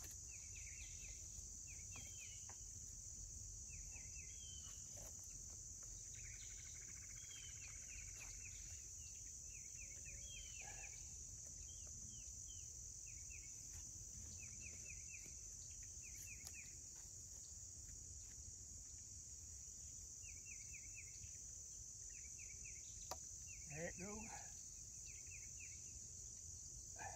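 Steady high-pitched chorus of crickets, with short rapid chirps repeating every second or two. A click and a short grunt-like voice sound near the end.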